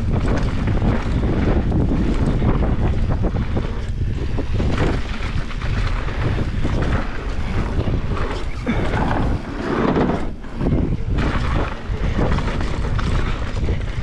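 Wind buffeting the rider-mounted camera's microphone, over the rolling noise of mountain bike tyres on a dirt downhill trail at speed.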